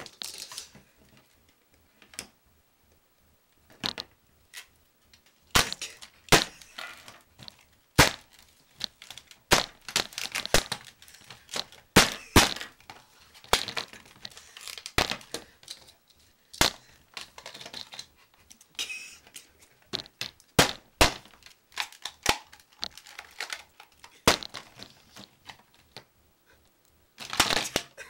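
Scattered sharp clicks, knocks and crinkling as the broken plastic housing and circuit boards of a smashed alarm clock are handled.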